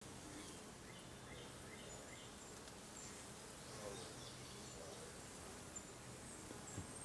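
Faint outdoor ambience: small birds chirping in short, repeated notes over a low, steady hum.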